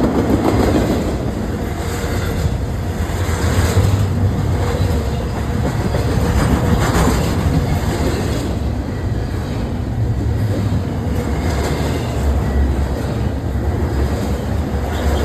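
Long freight train's cars rolling past at close range: a steady noise of steel wheels on the rails, with a few louder clatters now and then.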